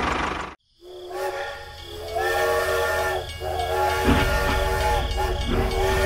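A steam-train whistle sounding from a toy steam locomotive: a chord of held whistle tones in about four long blasts with short breaks, over a hiss. It starts after a small engine's running noise cuts off about half a second in, and a low rolling rumble joins it about four seconds in.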